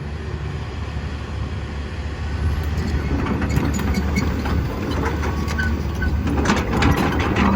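Komatsu PC160LC track excavator's diesel engine running under load while the machine travels. From about three seconds in, its steel tracks add repeated clanks, clicks and brief squeaks.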